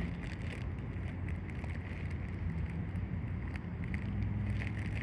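Small clicks and knocks of wood pieces and rocks being moved about by hand, over a steady low hum.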